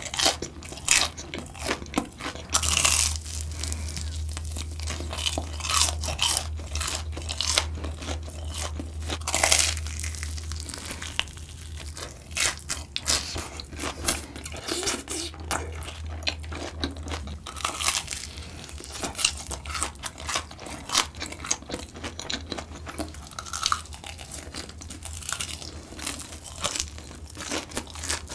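Close-miked crunching and chewing of fried Korean corn dogs with a sugar-dusted crust, a rapid irregular run of sharp, crisp crunches as the batter is bitten and chewed.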